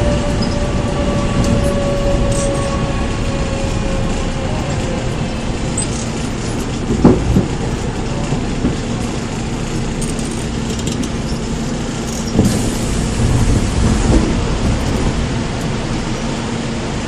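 Seoul Metro 4000-series train with Mitsubishi GTO-VVVF traction running: the inverter and motor whine glides slowly down in pitch over the first few seconds as the train slows. After that come wheel and track rumble and a steady low hum, with a sharp clank about seven seconds in.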